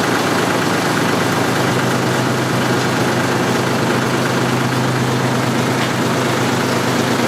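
Canal boat's engine running steadily, a constant low hum that holds the same pitch throughout.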